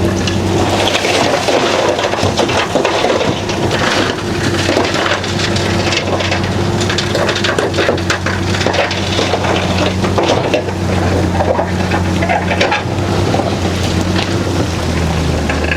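Heavy bulldozer's diesel engine running steadily under load, with rock crunching and grinding as the blade pushes it.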